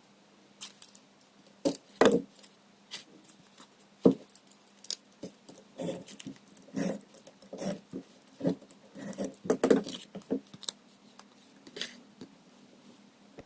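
Packaging being handled and opened by hand: irregular rustles, taps and clicks at uneven intervals, with sharper clicks about 2 s, 4 s and 10 s in, over a faint steady hum.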